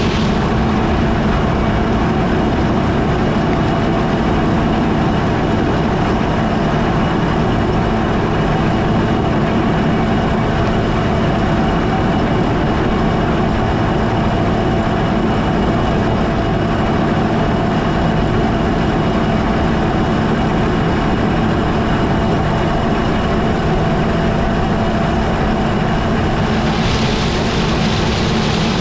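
Combine harvester running steadily, a constant engine and machinery drone with a steady hum; the higher hiss grows a little near the end.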